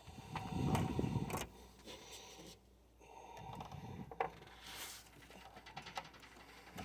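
Hands working a rubber radiator hose and its clamp onto a fitting: rubbing and handling noise with scattered clicks and knocks, heaviest about a second in and again around four seconds.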